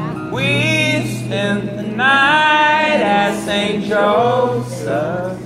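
Live acoustic folk music: two acoustic guitars being strummed and picked under male singing, a steady low guitar note running beneath sung phrases that glide in pitch.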